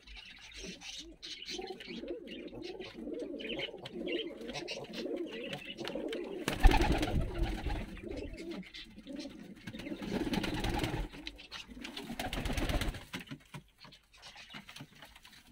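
Domestic fighting pigeons cooing in a small loft, several birds at once. About six and a half seconds in there is a sudden loud thump, followed by low rumbling noise until about thirteen seconds in.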